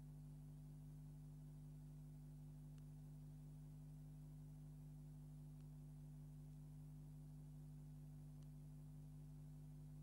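Near silence: a faint, steady low electrical hum, with a faint tick about every three seconds.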